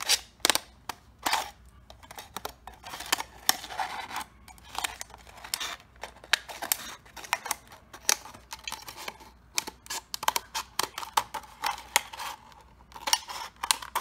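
Scissors cutting through a thin plastic water bottle: an irregular run of short, sharp snips with the plastic crackling.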